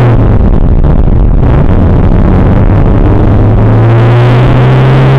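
Škoda Felicia rally car's 1.3-litre four-cylinder engine, loud from inside the cabin, pulling hard: the note dips right at the start, then climbs steadily through the revs over the last few seconds.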